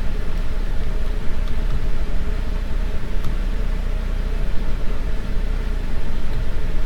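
Steady low rumbling background noise with an even hiss above it and a faint click about three seconds in.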